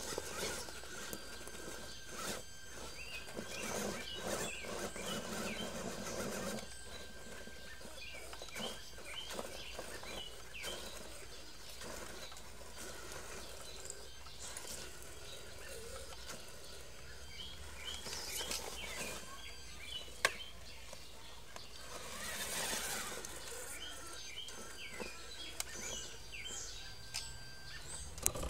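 Birds chirping throughout, over a few short spells of a Traxxas E-Maxx RC truck's electric motors running and its tyres scrabbling over dirt, rocks and leaves. The longest spell comes a few seconds in, and two shorter ones follow later.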